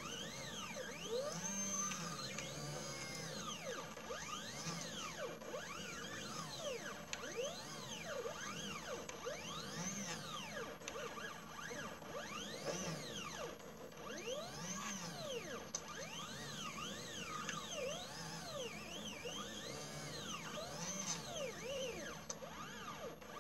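Stepper motors of a mini CNC laser engraver whining as the head moves along the engraving path, the pitch rising and falling in quick arches over and over, over a steady hum.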